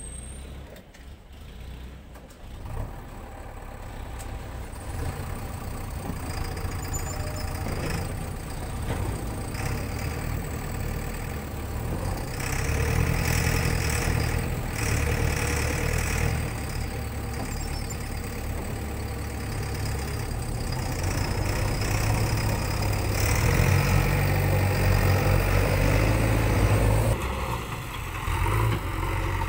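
JCB 3DX backhoe loader diesel engines running and revving up and down under hydraulic load as the backhoe arms are worked. The sound builds up over the first few seconds.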